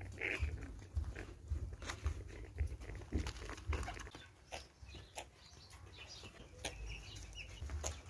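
Young broiler chicks breathing with short cough-like snicks at irregular intervals: the 'funny breathing' that the farmer takes for a normal sound at this growth stage, not chronic respiratory disease.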